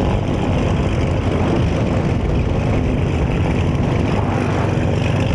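Piston engine and propeller of a light aerobatic monoplane running steadily as it taxis close by.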